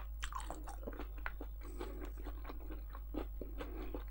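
Close-miked chewing of a mouthful of cauliflower and macaroni cheese casserole: soft, irregular mouth clicks and smacks, several a second.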